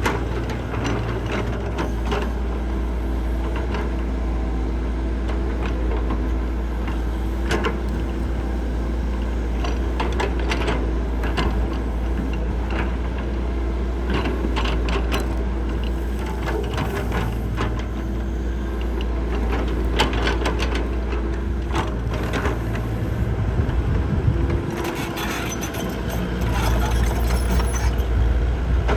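Heavy diesel construction machine running steadily under load, with frequent sharp knocks, cracks and rattles from material being worked. The engine rumble dips briefly about three quarters of the way through, then picks up again.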